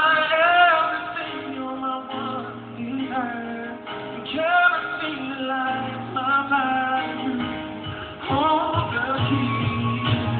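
A man singing a song live with guitar accompaniment.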